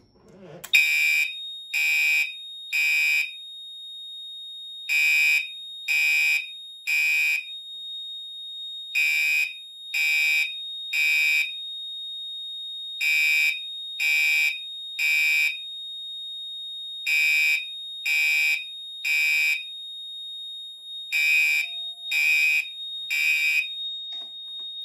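Gentex Commander 3 fire alarm horn sounding the code-3 temporal evacuation pattern: three blasts, a pause, three more, repeating about every four seconds. A steady high electronic tone runs underneath. It starts just after a pull station is pulled and stops at the end.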